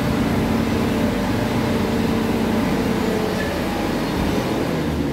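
A vehicle engine running steadily close by: a low, even rumble with a faint hum, fading slightly near the end.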